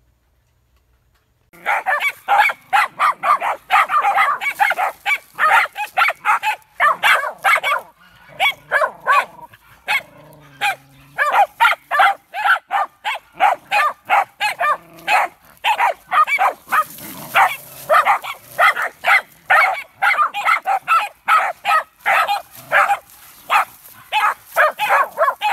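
Dogs barking rapidly and almost without pause at an animal they have found on a dirt trail, starting about a second and a half in, with a short lull about ten seconds in.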